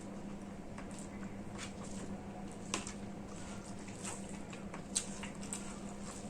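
Wet eating sounds of rice and soybean curry being chewed: scattered soft smacks and clicks from the mouth, two of them louder, over a steady low hum.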